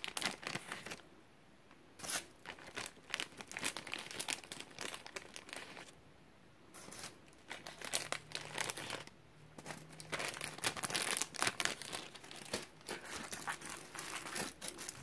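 Plastic zip bag crinkling as lemon wedges are taken out of it, in irregular crackles with a couple of short pauses; near the end the paper-and-foil burrito wrapper rustles as the burrito is picked up.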